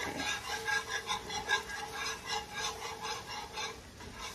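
A whisk scraping rhythmically around a cast-iron skillet, about four strokes a second, as flour is whisked into melted butter to make a roux.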